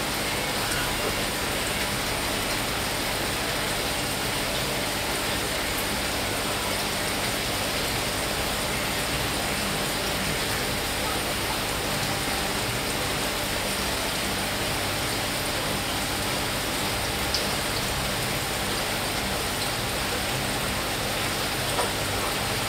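Aquarium water circulation: a steady, even rush of falling, splashing water with a faint low hum under it.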